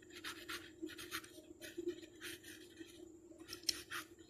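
Pen writing on paper: a run of short, faint scratching strokes as a word is written out by hand, with a brief pause about three seconds in.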